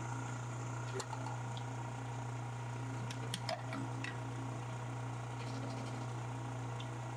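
De-airing pug mill running with a steady low motor hum, with a few soft knocks about a second in and again around three to four seconds in as lumps of clay are pushed into the hopper.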